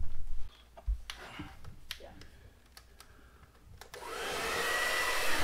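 A handheld hair dryer switches on about four seconds in. Its fan runs up to a steady rushing hiss with a thin, high whine. Before that there are a few light clicks and knocks.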